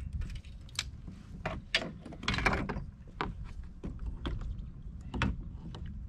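Irregular knocks, clicks and rattles of fishing gear handled against a plastic Hobie fishing kayak, a dozen or so sharp hits with a busier cluster about two and a half seconds in, over a steady low rumble.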